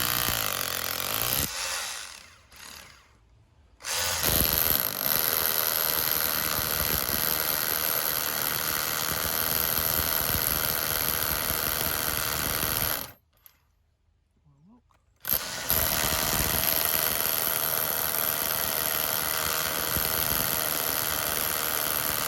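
Power drill driving a toothed grinder head, centred on a pilot hole, grinding uneven stonework flat to seat an outside tap. It runs in three spells: briefly, then for about nine seconds, then, after a pause of about two seconds, for about seven more.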